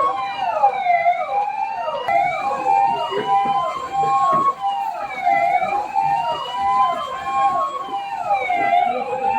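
Several emergency-vehicle sirens sounding together: a slow wail that rises over about three seconds and then drops, repeating, over quicker sweeps that fall several times a second.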